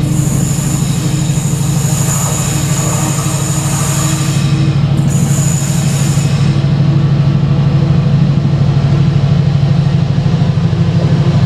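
Freightliner Class 70 diesel-electric locomotive working hard under load with a steady low engine drone, hauling engineering wagons. High-pitched wheel squeal from the train on the curve runs over it, breaks briefly, then stops about two-thirds of the way through, and the engine grows a little louder as it draws nearer.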